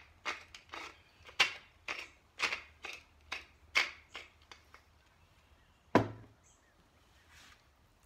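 Wooden pepper mill grinding black pepper: short grinding strokes, about two a second, as the top is twisted back and forth, stopping after about four and a half seconds. About six seconds in, one sharp knock as the mill is set down on the table.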